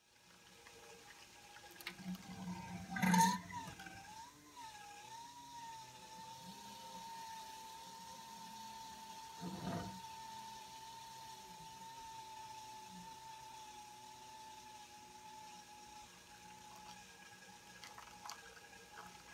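Homemade mash stirrer's electric gear motor running under speed control with a steady whine, its pitch wavering a few seconds in and then settling, over the sound of mash swirling in the tun as the whole mash turns with the paddle instead of being mixed. A loud knock about three seconds in and a smaller one about ten seconds in.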